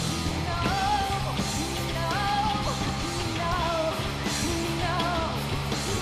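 Live rock band playing: a female lead vocalist sings phrases of held, wavering notes over guitar, bass and drums.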